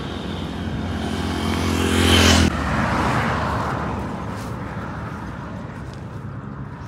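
A road vehicle on a highway approaching and passing close, its engine and tyre noise building to a peak about two seconds in, then cutting off abruptly. Fainter steady roadside traffic and wind noise follow.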